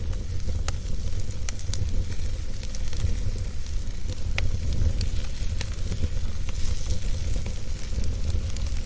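Wood fire burning in a fire pit: a steady low rumble and soft hiss of the flames, with sharp crackles and pops at irregular moments throughout.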